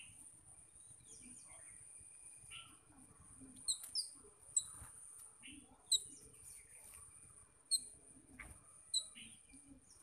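Birds chirping: about six sharp, short chirps starting about three and a half seconds in, with softer squeaky calls sliding downward between them, over a steady high-pitched whine.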